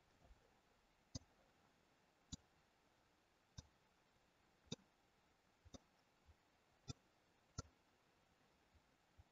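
Computer mouse button clicking: about seven short single clicks spaced roughly a second apart, against near silence.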